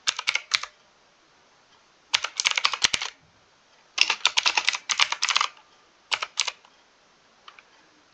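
Mechanical keyboard typing in short bursts of rapid keystrokes, separated by pauses of about a second. A few faint clicks come near the end.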